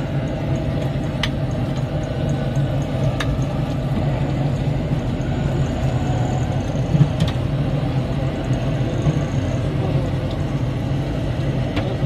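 Steady low engine rumble with a few faint clicks over it.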